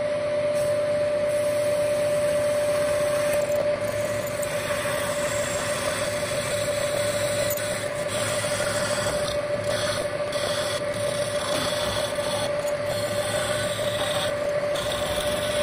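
Milling machine with its spindle running and an end mill cutting into a grey electrical bell box clamped in the vise. A steady whine sits over the rough cutting noise throughout.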